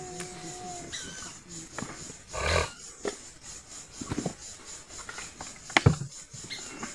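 An animal's short loud call about two and a half seconds in, with scattered sharp clicks and knocks around it, the loudest a little before the end.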